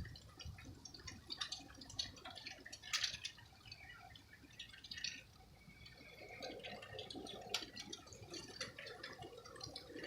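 Faint, irregular dripping and light ticking of water, with a faint low hum coming in after about six seconds.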